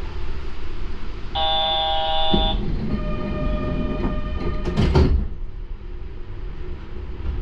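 Electronic chime on a Yurikamome train, two sets of steady tones one after the other, over the low rumble of the train. A sharp knock follows about five seconds in.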